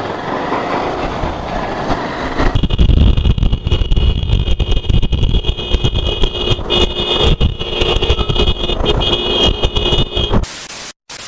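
Motorcycle riding at highway speed: wind rushing and buffeting over an action-camera microphone, over road and engine noise. About two and a half seconds in, the buffeting turns heavier and a steady high whine joins it. Near the end it gives way to a burst of hiss and a brief dropout.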